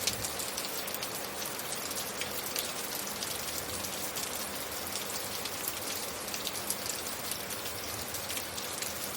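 Steady rain falling, a constant hiss with many small crisp drop impacts pattering on a surface.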